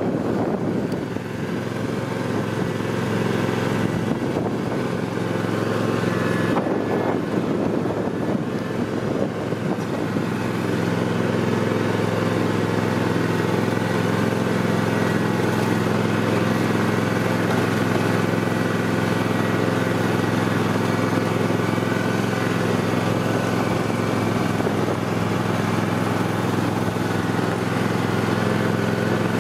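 Husqvarna TS 248XD garden tractor's 23-horsepower engine running steadily as the tractor is driven. The engine note wavers for the first ten seconds or so, then holds even.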